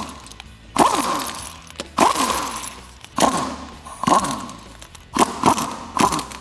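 Impact wrench with a 19 mm deep socket spinning lug nuts off a wheel in a string of short bursts, about one a second. Each burst starts sharply and its whine falls in pitch as the tool winds down.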